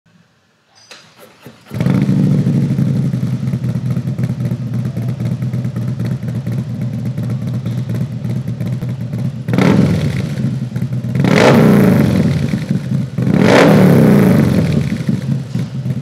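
Harley-Davidson Milwaukee-Eight 131 cubic-inch V-twin with a Feuling 592 cam, breathing through a full-length 2-into-1 Pro Mod exhaust, fires up about two seconds in and idles. It is then revved three times, each rev swelling and dropping back to idle.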